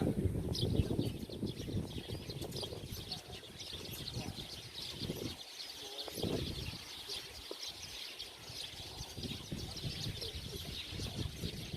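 Dense, unbroken chatter of many small birds chirping together, over a low irregular rumble.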